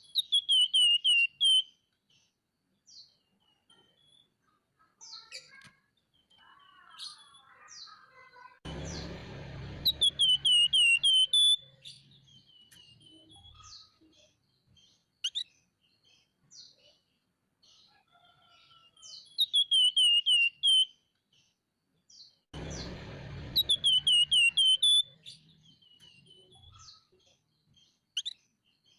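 Flamboyan songbird singing: four loud bursts of rapid, falling chirps, with scattered short chirps and calls between them. Twice a rushing noise sounds under the song.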